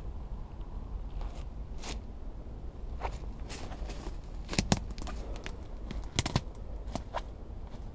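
Footsteps through long grass and undergrowth, with vegetation rustling and twigs crackling underfoot as a series of scattered sharp clicks. The loudest snaps come about four and a half seconds in and again about six seconds in, over a low steady rumble.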